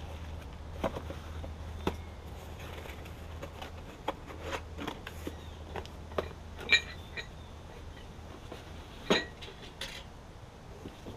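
Scattered clinks and knocks of engine-kit parts and their boxes being handled and set down, the two loudest clinks ringing about seven and nine seconds in.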